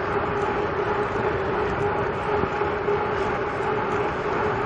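Steady rushing wind and road noise from riding a bicycle, with a steady low hum running underneath.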